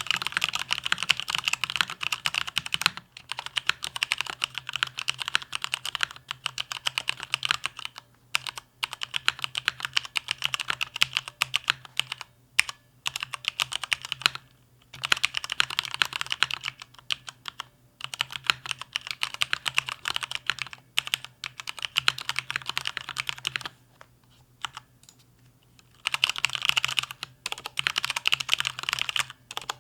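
Fast, continuous typing on a Mountain Everest Max mechanical keyboard with linear Cherry MX Red switches, resting on a desk mat for most of the stretch. The keystrokes come in dense runs, with a few short breaks and a pause of about two seconds near the end.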